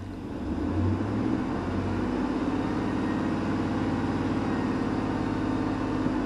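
2000 Chevy Silverado 1500's engine revved up about half a second in and held steady at raised speed.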